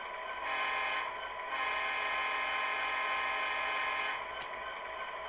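Stock factory diesel engine sound from a SoundTraxx Tsunami decoder in an Athearn Genesis SD70M model, played through the model's small speaker. It runs steadily, grows louder about half a second in, and drops back about four seconds in.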